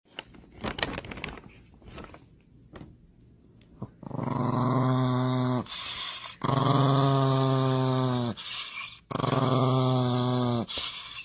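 A small Chihuahua-type dog growling: after a few faint rustles, three long, steady growls of about two seconds each, with short breaks between them.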